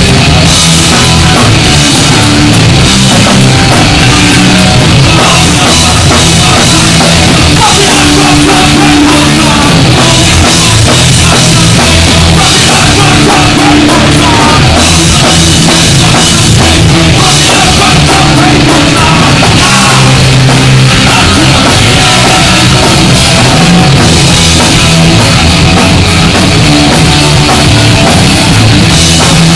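Punk band playing live: distorted electric guitars, bass and a fast drum kit, loud and unbroken.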